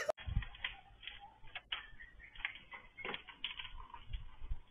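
Faint street sound through a security camera's microphone, with scattered light clicks and ticks over a low rumble.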